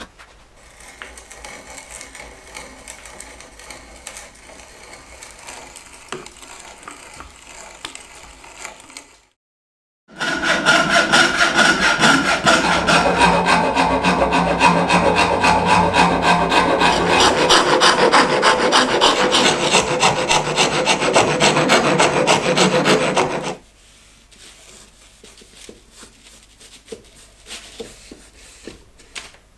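Hand tools working a wooden saw handle. A quieter stretch of hand-sawing is followed by a short silent break at about nine seconds. Then come loud, fast rasp and file strokes shaping the finger hole for about thirteen seconds, and finally quieter rubbing as the handle is sanded with abrasive paper.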